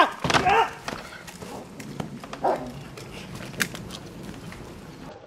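A protection dog grappling with a man in bite gear on grass. There is a short pitched cry about half a second in, then scuffling with scattered thumps and sharp clicks.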